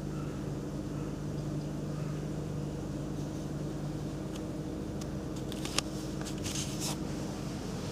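A steady mechanical hum, with a scatter of sharp clicks and knocks about five to seven seconds in.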